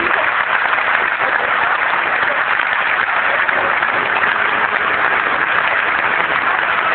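Large audience applauding, a dense and steady clapping.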